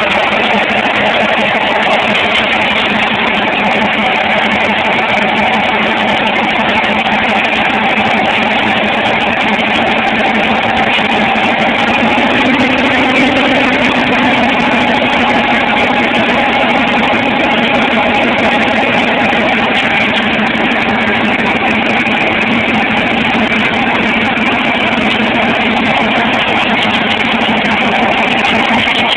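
Toyota 4Runner's 2.4-litre four-cylinder diesel running hard in a burnout, its wheels spinning and smoking, a loud steady sound that barely changes.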